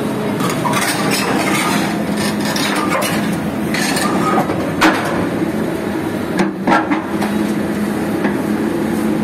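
LiuGong crawler excavator's diesel engine running steadily as the machine is loaded onto a steel lowboy trailer, with repeated sharp metal clanks and knocks, the loudest about five seconds in and again near seven seconds.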